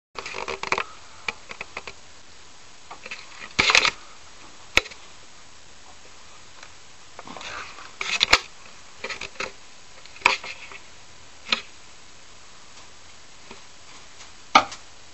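Handling noises: scattered sharp clicks and short rustles over a low steady hiss, the loudest click near the end.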